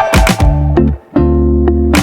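Background music: a funky groove with bass, guitar and a steady drum beat.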